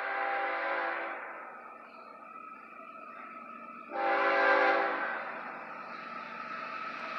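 Diesel locomotive air horn on an approaching CSX freight train blowing a multi-note chord: a long blast ends about a second in, then a short blast about four seconds in, with the train's rumble building toward the end.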